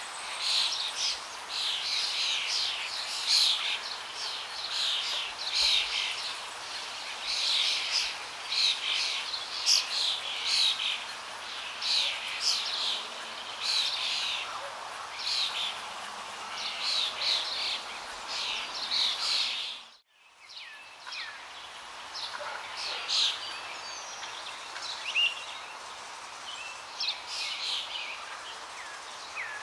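Many small birds chirping in quick, short calls over a steady background hiss. The sound cuts out abruptly about two-thirds of the way through, then the chirping returns more sparsely.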